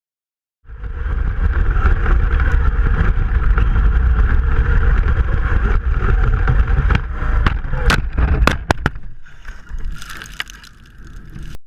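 Onboard sound of an Axial Yeti RC truck driving over rough ground: a heavy rumble of vibration and wind on the mounted camera's microphone with a steady whine above it. Several sharp knocks come about seven to nine seconds in as the truck bounces, and the sound cuts off abruptly near the end.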